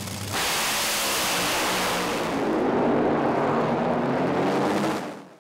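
Intro sound effect of a drag-racing engine: a loud engine sound under a rushing hiss. It jumps up just after the start, holds steady, then fades out near the end.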